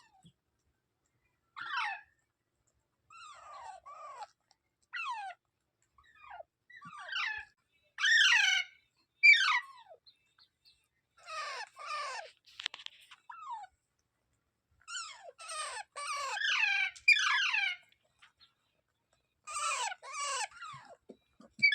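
Rose-ringed parakeet (Indian ringneck) calling: a run of short screeching calls, each sliding down in pitch, coming in quick clusters with brief pauses between them.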